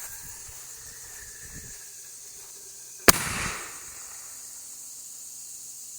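A single sharp bang from a consumer artillery shell, about three seconds in, with a short ringing tail. This is the lift charge firing the shell out of its mortar tube, and no break follows: the shell turned out to be a dud.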